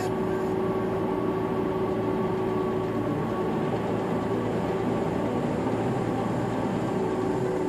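Steady road and engine noise of a car cruising on a highway, heard from inside the cabin: an even rumble of tyres and wind.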